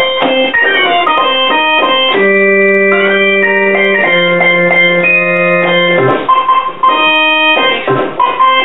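Organ-like keyboard music: held chords that change every second or two.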